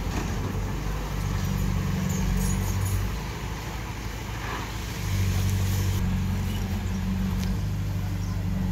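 Diesel engine of heavy earthmoving machinery working steadily. It eases off about three seconds in and picks up again about five seconds in.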